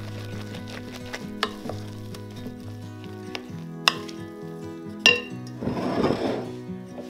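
Food sizzling in a frying pan while a utensil stirs it, clinking against the pan a few times, with a louder stretch of stirring about five and a half seconds in. Soft background music plays underneath.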